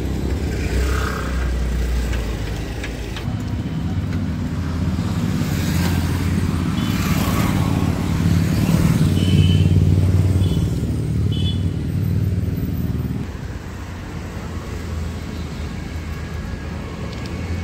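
Road traffic and engine noise heard from a moving vehicle: a steady low engine hum over rushing road and wind noise, loudest about nine to ten seconds in and easing after about thirteen seconds. A few short high-pitched notes sound between about seven and eleven seconds.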